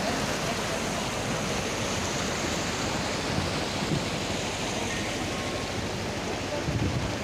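Shallow mountain stream, the Yamuna, rushing and splashing over boulders and stones as a steady, even hiss.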